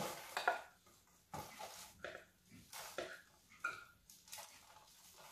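Crumbly ground date-and-almond mixture being shaken out of a plastic food-processor bowl into a metal loaf tin: a string of short, irregular scrapes and knocks as it falls and the bowl is jostled.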